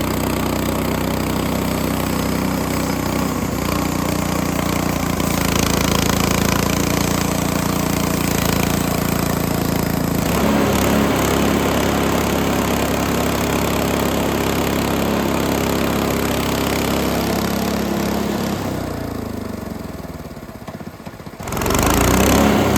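Small gasoline engine of a Frontier OS18 portable bandsaw mill running steadily as the mill saws a black walnut branch; the engine note changes about ten seconds in, then the engine slows and quietens near the end before coming back up suddenly.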